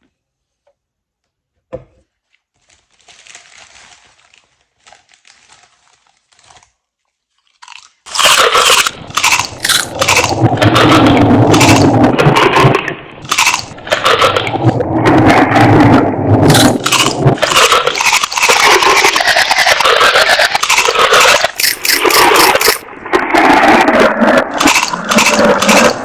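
Close-up crunching and scraping of something dry and crisp, loud and irregular with many sharp crackles, starting about eight seconds in after a single click and some faint rustling.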